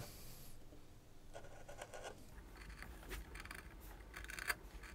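Palm carving tool making short, faint scraping cuts into the scorched surface of a wooden bowl, several small strokes in a row as leaf shapes are carved.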